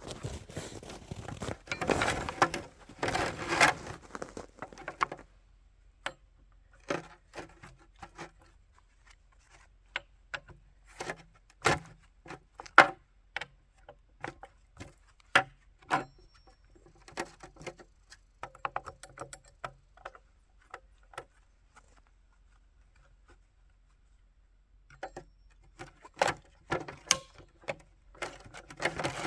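Scattered sharp clicks and knocks, with stretches of denser rustling and crunching noise in the first few seconds and again near the end.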